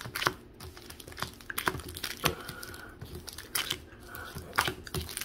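Foil wrappers of sealed Pokémon booster packs crinkling as the packs are shuffled by hand, in irregular crackles and rustles.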